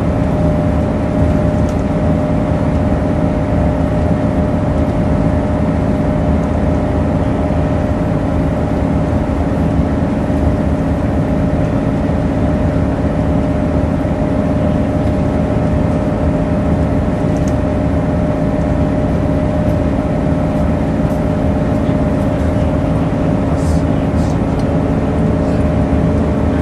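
Volvo Citybus double-decker running at a steady pace, heard from inside the passenger saloon: a low engine drone with a steady whine above it.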